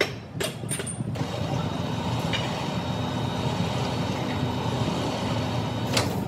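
Steady mechanical running noise with faint held tones, with a few sharp knocks in the first second and another just before the end.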